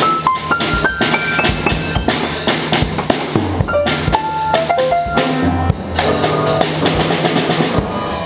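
Music being played: a melody of single notes stepping up and down over a drum beat with bass drum and snare.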